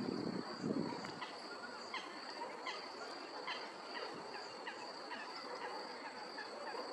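Lakeside outdoor sound: a bird repeating short, falling chirps about once a second, over a steady high-pitched insect drone.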